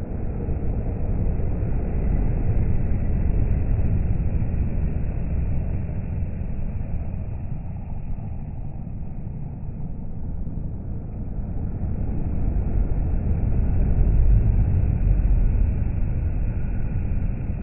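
Heavy lorries passing on a motorway, a low tyre and engine rumble. It swells a couple of seconds in as a MAN lorry goes by, eases, then swells louder again about three-quarters of the way through as a Scania tractor unit pulling a tipper trailer passes close.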